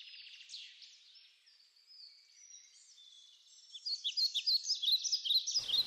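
Small birds chirping in short, high notes, sparse and faint at first and more frequent and louder from about halfway through.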